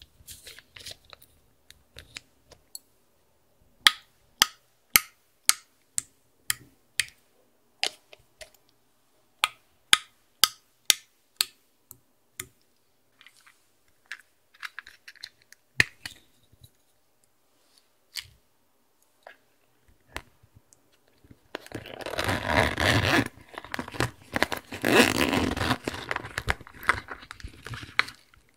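Sharp clicks and taps on hard plastic makeup packaging, evenly spaced at about two a second for several seconds, then thinning out. About two-thirds of the way in, a dense crinkling rustle as a holographic vinyl makeup pouch is handled and rummaged through.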